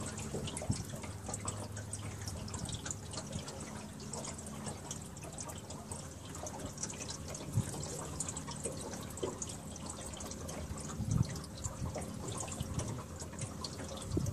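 Water dripping and trickling close by around a small boat, with scattered small ticks and a few light knocks, one a little louder late on.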